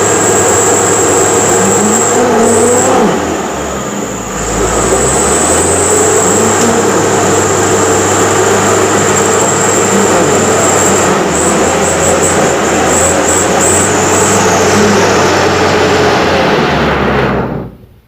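Mitsubishi Canter truck engine running hard with the revs rising and falling, easing off briefly about four seconds in, then cutting off abruptly near the end.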